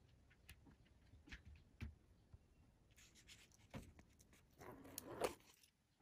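Faint handling noise from clear plastic cups: a few light clicks and taps, then a brief rustling scrape of plastic near the end.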